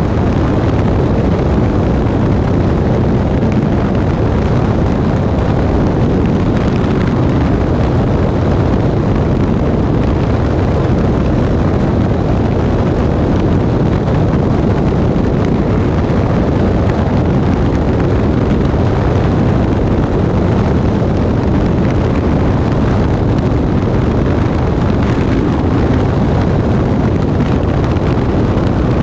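Loud, steady rush of airflow and engine noise from a light aircraft in flight, heard from a camera mounted under the plane, with the wind buffeting the microphone in a deep rumble.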